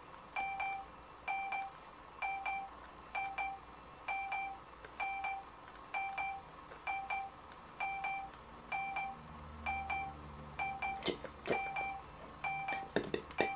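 Electronic beeping: short, high beeps in pairs, about one pair a second, repeating evenly. A few clicks come near the end.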